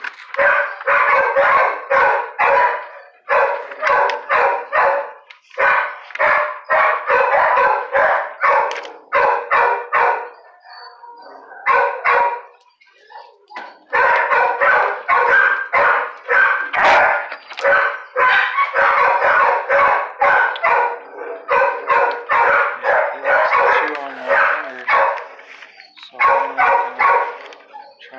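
Dog barking in long runs of rapid barks, about three or four a second, with a break of a few seconds about ten seconds in.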